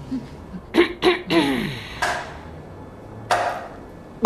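A person's wordless vocal sounds: two short grunts about a second in, then a longer groan that falls in pitch. A short noisy burst follows, and a sharp hit-like noise comes at the very end.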